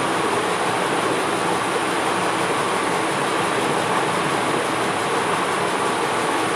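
Tomato and spice masala sizzling steadily in hot oil in a kadai.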